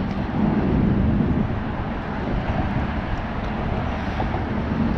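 Steady low rumbling noise, strongest in the bass, with no distinct event in it.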